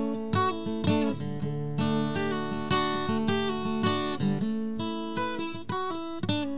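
Acoustic guitar music: strummed chords in a steady rhythm.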